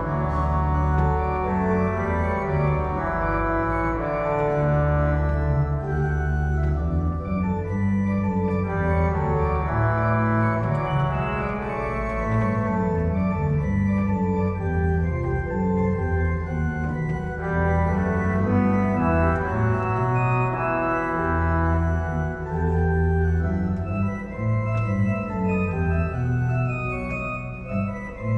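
Church organ playing a slow chordal piece, held chords changing every second or so over deep sustained bass notes.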